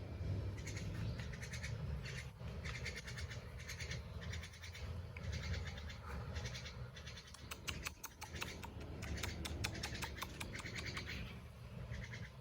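Repeated bursts of quick, high chirping calls, each burst about a second long and made of rapid clicks, thickest a little after the middle, over a steady low rumble.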